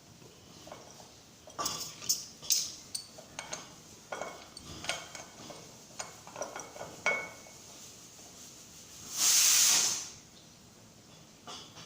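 Metal tools and fittings clinking and tapping in a quick irregular series, then a single loud hiss of released gas lasting about a second, heard while refrigerator gas-charging lines are being set up.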